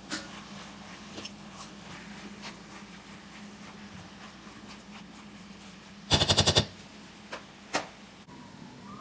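Light clicks and knocks of cooking work, with a faint steady hum underneath. About six seconds in comes a short burst of rapid clicking, around a dozen clicks in half a second, which is the loudest sound.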